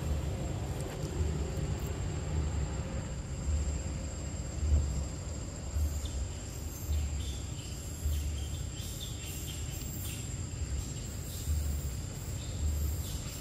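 Steady high insect drone of crickets or cicadas, over a low uneven rumble, with scattered faint high clicks in the second half.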